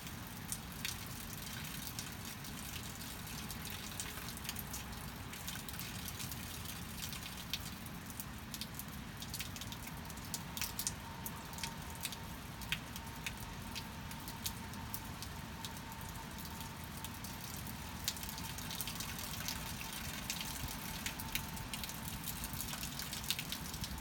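Rain falling, with a steady patter and frequent sharp drips tapping on surfaces. A faint steady tone joins about ten seconds in.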